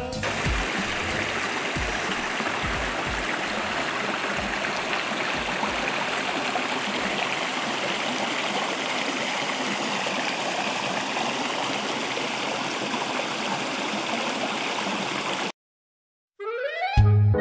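Shallow rocky creek running over mossy stones: a steady rush and gurgle of water. It cuts off suddenly near the end, and music starts a moment later.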